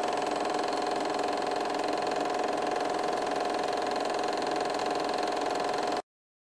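Film projector running: a steady mechanical whir with a fast, fine clatter and a constant hum, cutting off suddenly about six seconds in.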